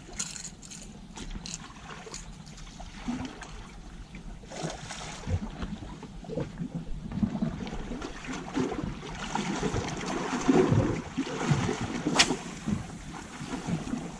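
Small waves lapping and splashing against shore rocks, irregular and getting louder in the second half, with one sharp click near the end.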